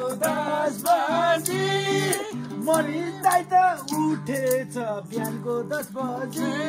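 Nepali dohori folk singing accompanied by a plucked string instrument, with a quick percussive beat throughout.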